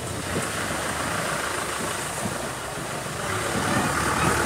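An engine running steadily, growing louder about three seconds in.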